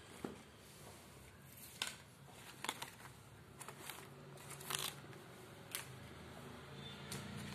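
Clothes and their card tags being handled: a series of about eight short, irregular rustles and crinkles.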